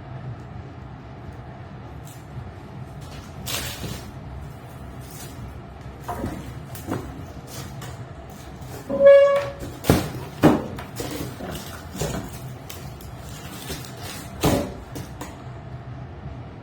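Shoes and their box being handled: scattered knocks and clicks, with a short squeak about nine seconds in and a loud knock just after, over a steady low hum.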